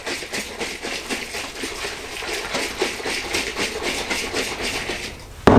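Honey and water sloshing inside a stoppered one-gallon glass carboy shaken by hand to dissolve the honey for mead: a rapid, rhythmic swishing. A loud thump comes near the end.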